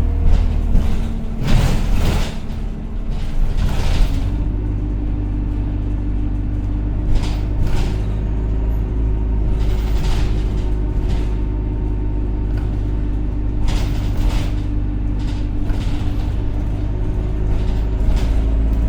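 Single-deck Alexander Dennis Enviro200 bus heard from inside while under way: a loud, steady engine drone with a hoover-like whine holding a constant pitch, broken by scattered sharp rattles and clicks from the bodywork.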